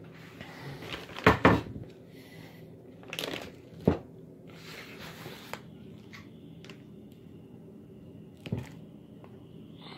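Clear plastic bag crinkling in bursts as a Bren Mk3 barrel is drawn out of it, with two sharp knocks as the metal barrel is handled against the wooden table.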